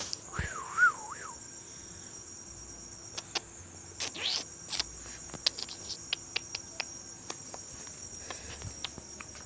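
Crickets chirping in a steady high trill. About half a second in, a short tone wavers up and down twice, and sharp clicks come scattered through the second half.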